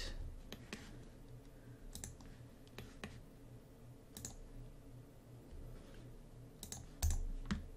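A few scattered computer mouse clicks, sharp and spaced a second or so apart, over a faint low hum, with a soft low thump about seven seconds in.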